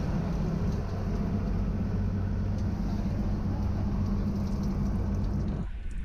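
Boat engine running steadily with a low hum. About five and a half seconds in the hum drops away and a quieter wash of wind and water is left.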